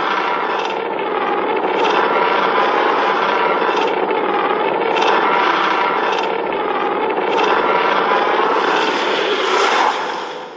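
Godzilla's roar from the 2014 Legendary film, a sound effect: one long, rough, wavering roar held for about ten seconds, dying away near the end.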